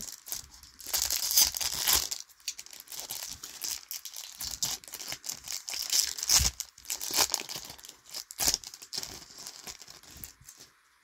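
A trading-card booster pack's wrapper being torn open and crinkled by hand, with the loudest tearing about a second in and irregular crinkling after it that fades near the end.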